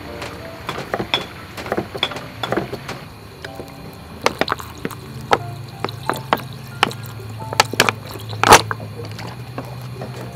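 A knife chopping on a wooden cutting board, then fish sauce poured into a stone mortar of pounded chili and garlic, with many short sharp clicks and knocks, one louder knock near the end. Soft background music plays underneath.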